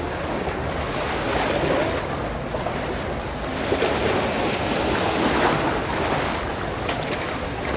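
Waves breaking and washing up the beach in a steady rush of surf, with wind on the microphone.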